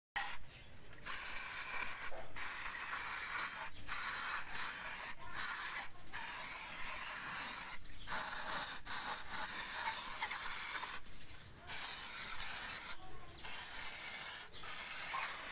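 Aerosol degreaser hissing from a can's straw nozzle onto an aluminium cylinder head, sprayed in repeated bursts broken by short pauses.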